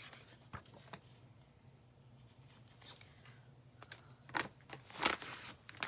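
Quiet handling of craft supplies on a work table: a few light clicks and taps, then two louder brief rustles about four and five seconds in, over a faint low hum.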